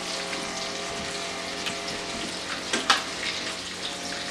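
Breaded pickerel fillets frying in a pan of oil: a steady sizzle with scattered small pops and one sharper crackle about three seconds in.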